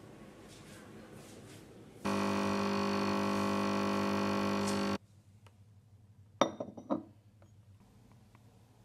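Coffee machine's pump buzzing steadily as it dispenses coffee into a china cup, starting about two seconds in and cutting off sharply after about three seconds. Two sharp clinks follow a little later.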